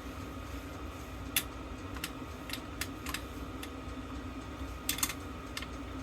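Scattered light clicks and taps of small metal parts being handled while a vintage fire alarm bell is taken apart, about nine in all, over a steady background hum.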